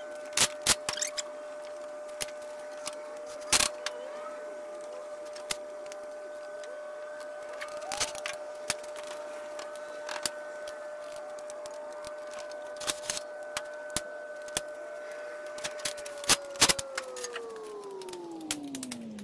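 Sharp metal clanks and taps of hand tools against the three-wheeler's front fork and handlebar clamps as they are refitted. Under them a machine's motor runs with a steady whine, then shuts off near the end and winds down in pitch.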